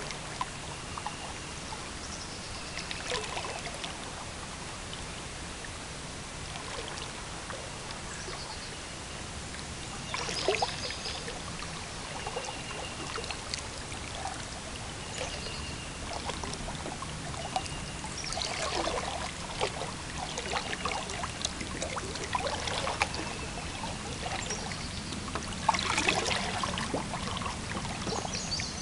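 Water splashing and trickling off a paddle as a small boat is paddled through flooded timber, with louder strokes about 3, 10, 19 and 26 seconds in over a low steady hum.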